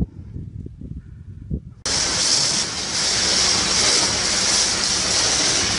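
Wind buffeting the microphone, then an abrupt jump about two seconds in to a loud, steady hiss: a firefighter's hose jet spraying water onto the burnt-out John Deere C670 combine, with a faint low hum underneath.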